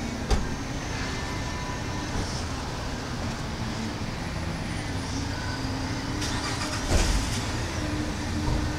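1972 Dodge Challenger's V8 idling steadily with a low rumble, heard from the front grille. There is a sharp click just after the start and a dull thump about seven seconds in.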